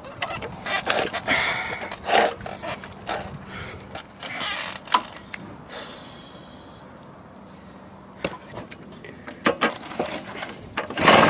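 Garelli Noi moped being pedal-started: the pedal crank and drive rattle and clunk with each push, turning over the two-stroke engine, which does not catch. The pushes stop for a couple of seconds past the middle and start again near the end.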